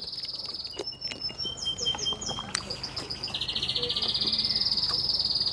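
Insects trilling in a fast, pulsing, high buzz that grows louder and steadier in the second half, with a short run of bird chirps about two seconds in.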